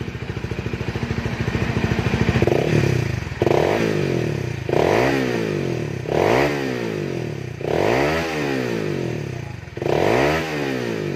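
Honda Sonic 150R's fuel-injected single-cylinder engine running through its stock muffler with the internals gutted out: idling steadily, then revved five times in neutral, each rev climbing quickly and falling back to idle.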